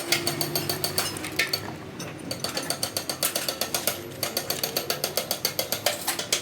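Rapid metallic clicking, about six a second, in two runs with a short break about a second and a half in, from hand-tool work on a truck gearbox.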